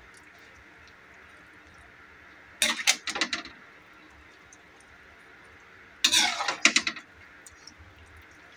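Metal spoon scraping and clinking against a wok while scooping food onto a plate, in two short bursts of several strikes, about three seconds in and about six seconds in.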